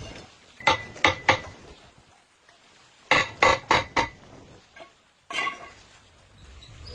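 Hard metal objects clinking and tapping together in short runs: three quick clinks early on, four more around three seconds in, and a single one past five seconds.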